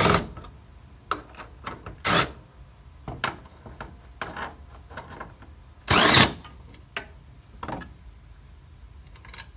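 Cordless quarter-inch Craftsman impact driver with an extension and 10 mm impact socket, running small hood bolts out in short bursts. Loud bursts come at the start, about two seconds in and about six seconds in, with shorter, quieter blips and clicks between.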